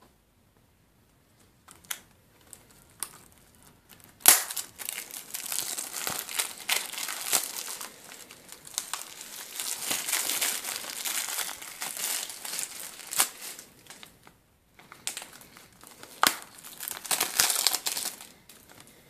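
Thin plastic shrink-wrap being torn off a Blu-ray case, crinkling and crackling. A few light clicks at first, then a sharp snap about four seconds in starts a long run of crinkling, which breaks off briefly near fourteen seconds and picks up again.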